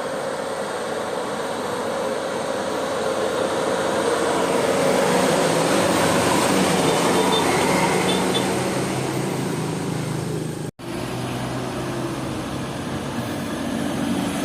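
Steady vehicle engine and road noise with no horn sounding. It breaks off for an instant about eleven seconds in.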